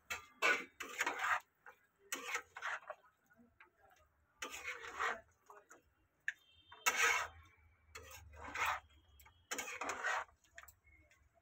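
Metal spatula stirring and scraping vegetables in milk in a non-stick pan, in about seven strokes with short pauses between.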